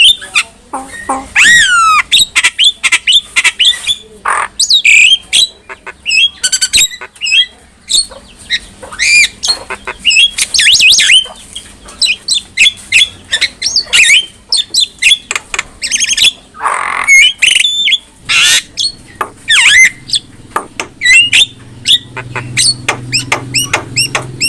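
Javan myna (jalak kebo) singing a fast, varied string of whistles, gliding notes and harsh squawks.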